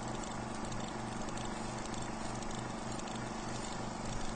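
Intro logo sound effect: a dense crackling, pattering texture over a low hum that pulses about three times a second. It swells near the end.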